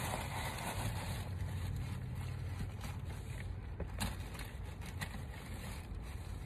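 Steady low rumble inside a car cabin, with faint rustling and a few small ticks as packaging is handled.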